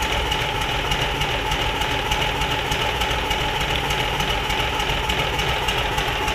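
Freshly rebuilt Mitsubishi Fuso 6D22 inline-six diesel engine idling steadily on a test stand, with a fast, even diesel pulse. This is its test run after repair.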